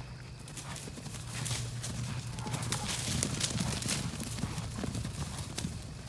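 Irregular clattering clicks, like hooves or hard objects knocking, over a low steady hum.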